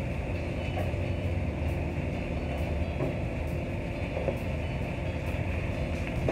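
Commercial kitchen extractor hood fan running, a steady low rumble with a hiss above it.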